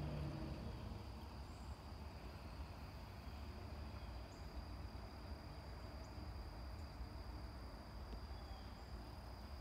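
Faint outdoor background of a steady, high-pitched insect drone over a low rumble, with a few faint short chirps higher up.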